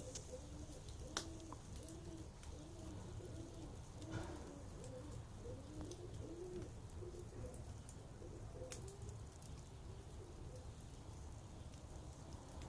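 Campfire crackling, with a few sharp pops over a low steady rumble, while a dove coos over and over in short rising-and-falling notes that die away in the second half.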